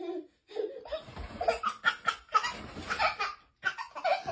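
Laughter in a run of short, breathy bursts with brief gaps between them.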